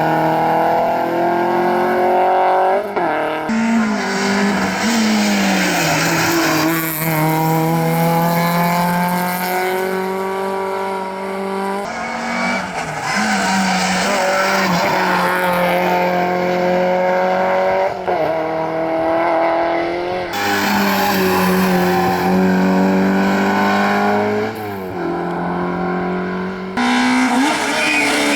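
Rally car engine running hard at high revs. The pitch climbs slowly, then drops or jumps suddenly several times, as the car changes gear or comes off the throttle for corners.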